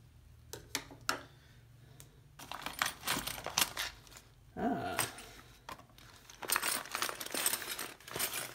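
Small metal tools clinking and rattling, with scattered sharp clicks, as loose Allen keys are handled in a plastic pouch.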